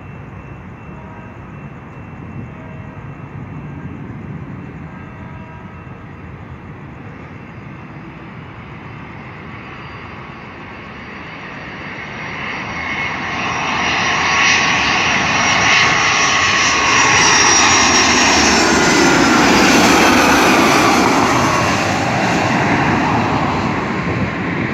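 Airliner's engines passing close by: a steady engine noise grows loud about halfway through and stays loud. Its high whine then slides down in pitch as the aircraft goes past.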